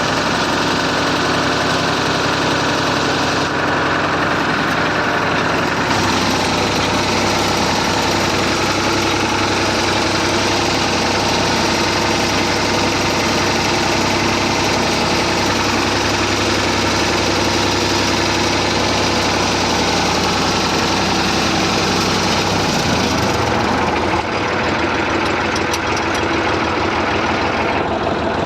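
Massey Ferguson 35 tractor engine running steadily. Its note changes about six seconds in and drops lower near the end.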